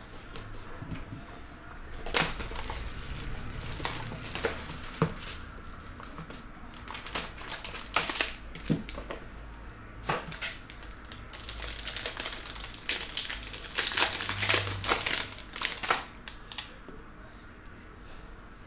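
Plastic shrink wrap being cut and torn off a trading card box: crinkling plastic with sharp clicks and cardboard handling, busiest in two stretches partway through and dying down near the end.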